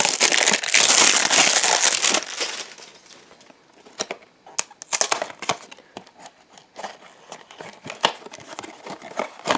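Blind-box packaging being opened by hand, a crinkly foil bag torn and crumpled: a loud stretch of crinkling for about the first two seconds, then scattered small crackles and clicks.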